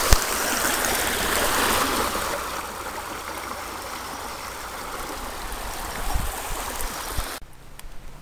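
Shallow stream water rushing and babbling over stones, louder for the first couple of seconds, then steadier. It cuts off abruptly near the end.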